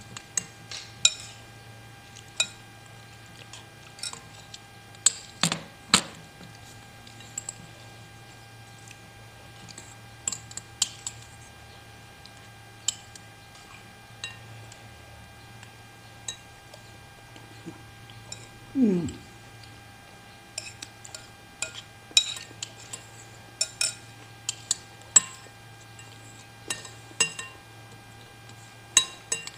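Spoon and fork clinking against a bowl of bakso meatball soup at irregular intervals while eating, with a low steady hum behind. One short sound falling in pitch comes about two-thirds of the way through.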